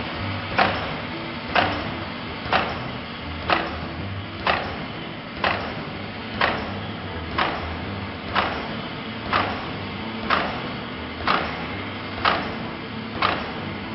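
Pouch-making machine running, its cutting head striking with a sharp clack about once a second as each pouch is cut from the printed film web, over the steady running of the machine.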